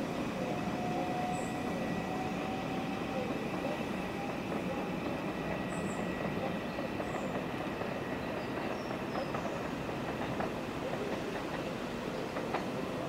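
Train running along the track, a steady rumble of wheels on rail. A faint whine fades out over the first few seconds, and a few sharp clicks come in the second half.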